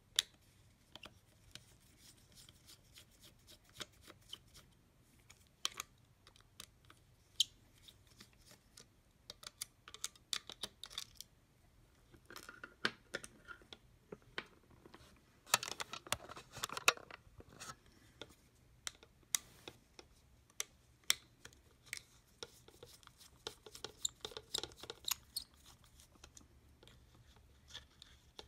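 Faint, irregular plastic clicks, taps and scrapes from the opened Logitech M570 trackball's housing and circuit board being handled and pried at by fingers, with a couple of busier scraping stretches about halfway through.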